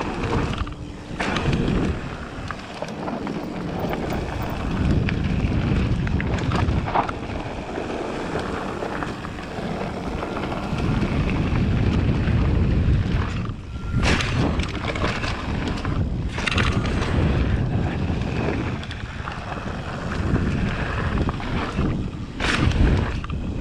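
Mountain bike descending a dusty, hard-packed dirt trail: wind buffeting the action-camera microphone over the rush of tyres on dirt and the rattle of the bike. A few sharp knocks in the second half.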